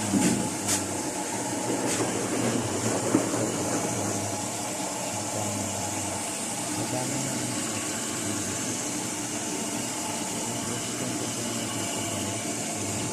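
Steady machine hum with a few sharp clicks in the first two seconds.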